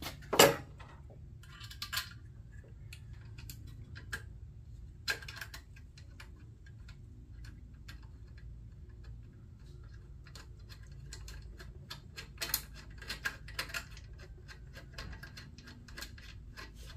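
Small metal parts clinking and clicking as a horn is fitted and bolted to its steel mounting bracket by hand, with one loud knock about half a second in and scattered light taps and clicks after it, over a steady low hum.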